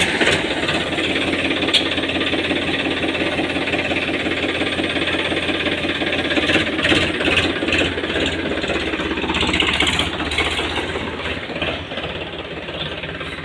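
Powertrac tractor's diesel engine idling steadily with a knocking clatter, just after a start from a long standstill.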